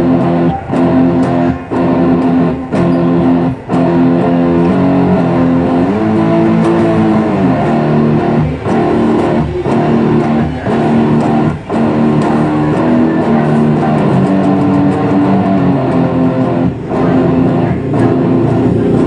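Music led by guitar: sustained guitar notes and chords with a bent note about a third of the way in, over a regular beat.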